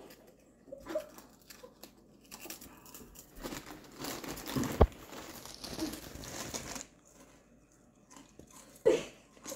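Potato chips crunching as they are bitten, and a plastic chip bag crinkling and rustling as a hand rummages in it for several seconds, with one sharp click near the middle.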